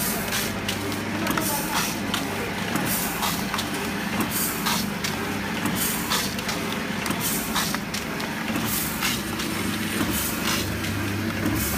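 HTL-400A vertical form-fill-seal packing machine running: a steady hum with frequent short hisses and clatters, about one or two a second, as it forms and fills bags with rice.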